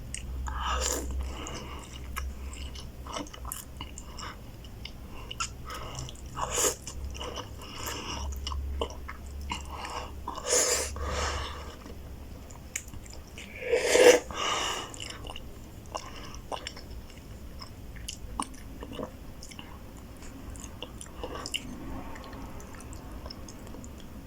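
Close-up eating sounds of a person having roast beef ramen noodles: wet chewing and mouth clicks, with a few louder noisy mouthfuls, the loudest about two thirds of the way through.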